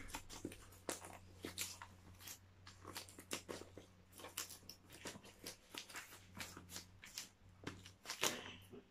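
Gift-wrapping paper rustling and crinkling as a wrapped present is handled, an uneven run of light crackles with a louder rustle near the end.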